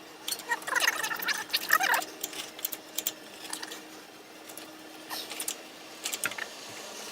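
Metal parts squeaking for about two seconds, then scattered sharp clicks and light knocks as the cylinder head is worked loose from the engine block.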